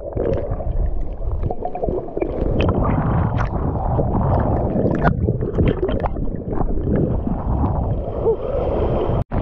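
Sea water sloshing, splashing and gurgling against a camera held at the surface by a swimming snorkeler, with bubbling as it dips under the chop. The sound breaks off for an instant near the end.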